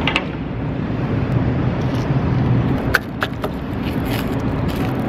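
Steady low rumble of street traffic, with a few light clicks and taps about three seconds in and again near the end.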